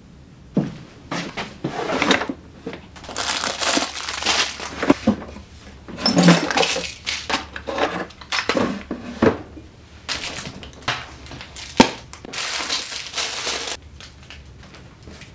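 Rummaging through a workbench drawer: tools and plastic boxes of small metal parts rattling, scraping and clinking, with a single sharp knock late on.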